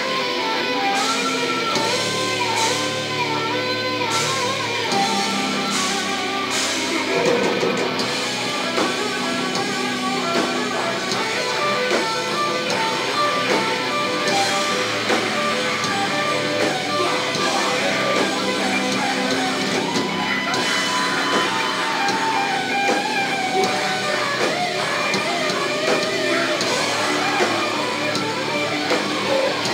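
Sludge/death metal band playing live: heavily distorted electric guitars and bass over drums, loud throughout.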